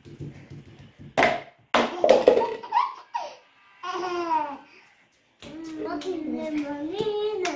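A baby laughing while a small boy vocalizes playfully at her, with a few loud sharp bursts between one and two and a half seconds in and a drawn-out sing-song voice in the second half.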